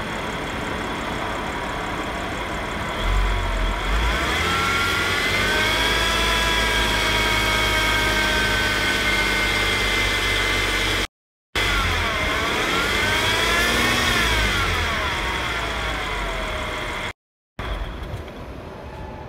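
2015 Audi S5's supercharged 3.0-litre V6 revved up twice from idle, a whine climbing and falling in pitch with engine speed. The owner asks whether this whining/rattling means something is wrong.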